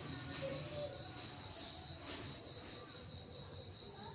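Insects trilling steadily in the background: a continuous high, finely pulsing trill that never breaks.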